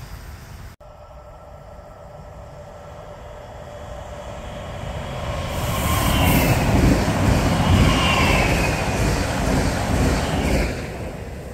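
A train passing on the line. The rumble builds, is loudest for about four seconds with a few high whining tones over it, then falls away sharply near the end.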